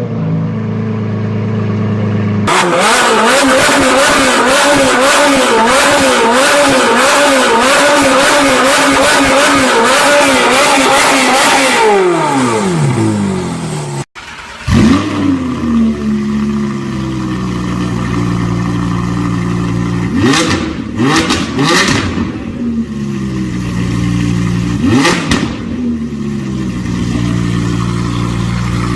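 Car engine with a loud exhaust, revved hard and held at high revs that waver up and down for about ten seconds, then dropping away. After a cut, an engine idles and is blipped several times, with sharp pops as the revs fall.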